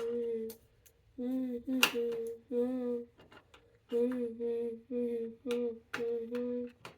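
A person humming a tune in a series of short held notes with brief gaps, with a few sharp clicks in between.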